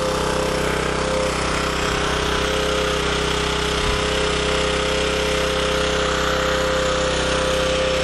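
Portable gasoline generator running steadily under a 500-watt halogen work-light load.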